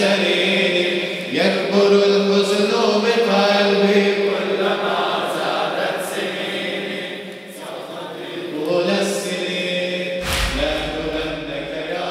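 A group of men chanting a drawn-out mourning refrain in unison, a Shia latmiya, with sharp chest-beating slaps at intervals. A deep low rumble comes in about ten seconds in.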